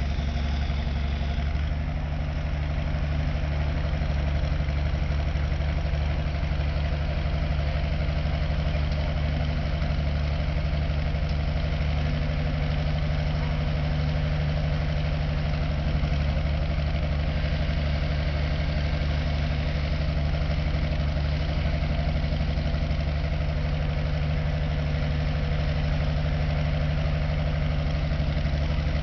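A Galion mobile crane's engine running steadily while it hoists a bulk bag, a low, even drone that does not change.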